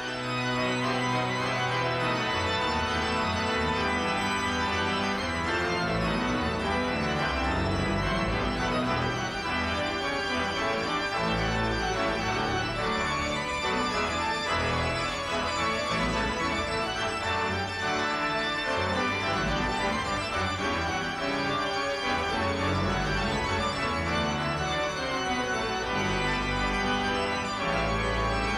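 Pipe organ music playing steadily: full sustained chords over changing deep pedal bass notes.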